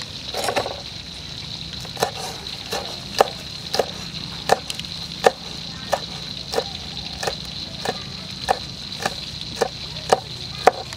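Steel cleaver chopping red chilies on a wooden chopping block: short, evenly spaced knocks, about one and a half a second, starting about two seconds in.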